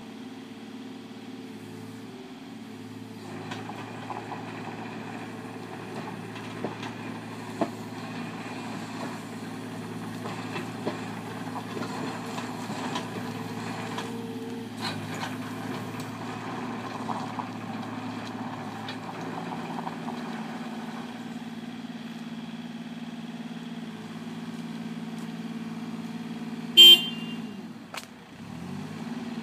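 Takeuchi TB230 mini excavator's diesel engine running steadily as the machine travels on its tracks over gravel, with scattered clicks and knocks from the undercarriage. Near the end comes one brief, loud horn-like beep, and just after it the engine pitch dips and comes back up.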